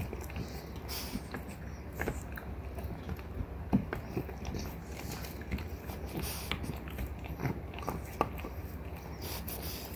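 Two French bulldogs gnawing on deer antler chews: irregular grinding and scraping of teeth on hard antler, with sharper clicks now and then.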